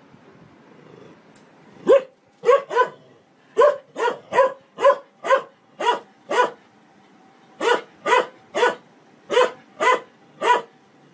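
A shepherd-type dog barking in short, sharp barks at a front-loading washing machine, about sixteen in three quick runs, starting about two seconds in.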